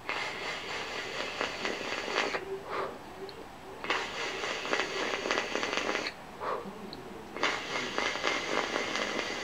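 Three draws on an e-cigarette's sub-ohm tank, each about two seconds long: air hissing through the tank's airflow with a crackle and a faint whistle, with short pauses between draws.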